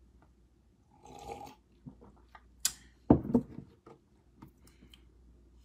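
Quiet sounds of a man drinking from a mug: a short sip about a second in, then a few small clicks and a soft swallow about three seconds in.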